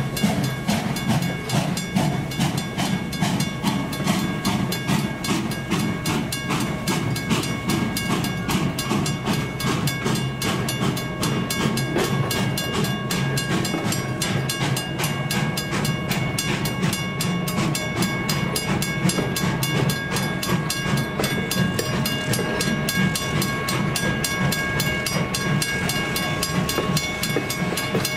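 A train rolling along: a steady low rumble with a fast, even clicking from the wheels and rails, and a few thin steady high tones over it.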